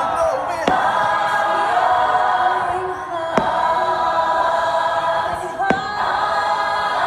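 Choral music with voices holding long chords, broken by three sharp cracks about a second in, in the middle and near the end.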